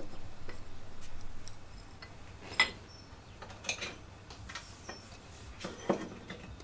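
Light scraping and handling of small metal parts as the brake lever plate is fitted over its studs, then a few isolated sharp clicks spaced a second or two apart.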